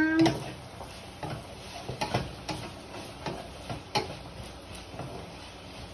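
Wooden spatula stirring vegetables in a stainless steel pan, with irregular light knocks and scrapes against the pan.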